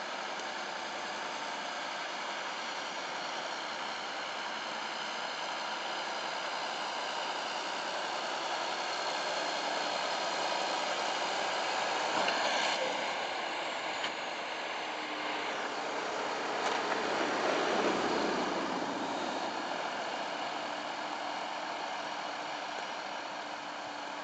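Vehicle engines running on a snow-covered road, led by a John Deere tractor pushing a snow plough. The sound swells twice as vehicles pass close, around the middle and again about three-quarters through.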